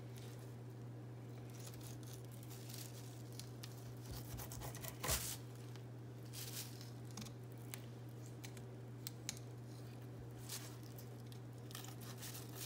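A knife slicing along a small fish's bones while filleting it, with scattered faint scrapes, clicks and crinkles of plastic sheeting. There is one sharper knock about five seconds in, over a steady low hum.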